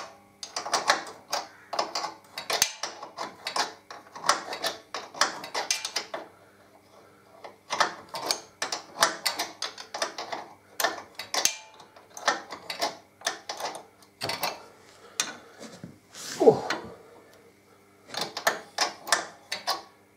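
Socket ratchet clicking in quick runs as it winds off the nut of a Harley-Davidson Electra Glide's swingarm mount bolt, with short pauses between runs. One short falling squeal, the loudest sound, comes about two-thirds of the way through.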